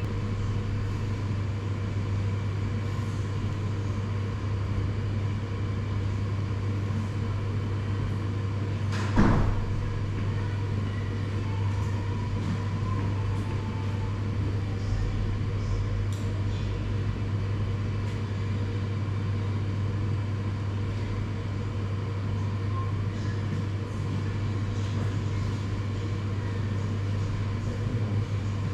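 Electric hair clippers buzzing steadily with a low, even hum, with one sharp knock about nine seconds in.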